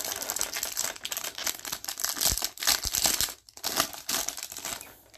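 Foil wrapper of a Topps Inception baseball card pack crinkling and tearing as it is opened by hand, a dense run of crackles that dies down near the end.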